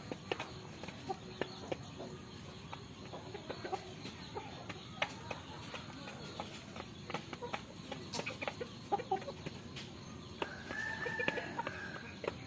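Rooster clucking in short calls, with scattered sharp clicks throughout and a longer held call near the end.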